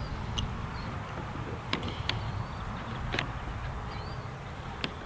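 A few light clicks, scattered over several seconds, from the Beretta ARX-100 rifle's charging handle as it is pulled out and rotated inwards into its detent.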